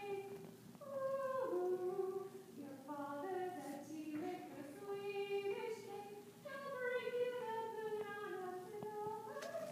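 A woman singing a slow solo melody, with long held notes that step up and down and brief pauses between phrases.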